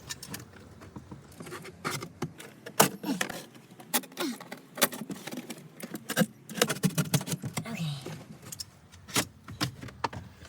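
A rusty blade cutting and scraping a hole through the car's trunk trim: an irregular run of sharp clicks, snaps and scrapes.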